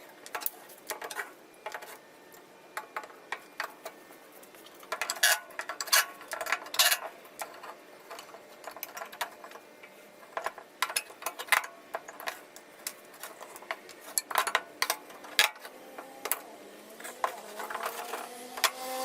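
Metal tools and parts clinking and clattering irregularly as a radial arm saw's base is taken apart, with a faint rising whine near the end.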